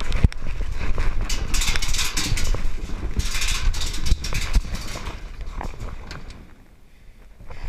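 Close rustling of clothing and gear with irregular thumps and knocks, as of a player moving fast with the camera on his body; it dies down about six and a half seconds in.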